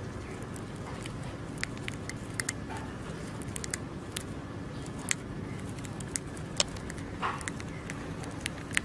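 A hamster nibbling a piece of food held in its paws: irregular small crisp clicks and crunches over a steady background hiss.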